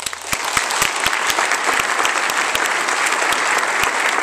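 An audience applauding at the end of a speech: dense clapping that starts all at once and holds steady, with a few single claps standing out sharply above the rest.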